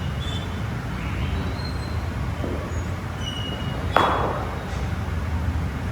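A cricket bat strikes a ball once about four seconds in: a single sharp crack with a short ringing tail. Underneath is a steady low rumble of road traffic.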